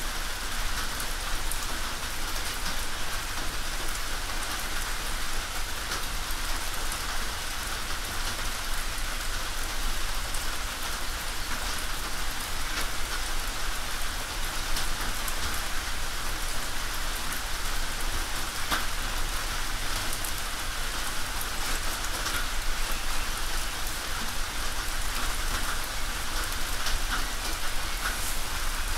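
Steady rain falling on a tin roof: a dense, even patter of drops on the metal, with many single drop ticks standing out.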